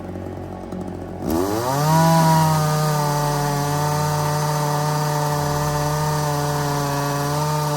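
Two-stroke Echo chainsaw going from a low idle to full throttle about a second in, the engine note rising sharply and then holding high and steady.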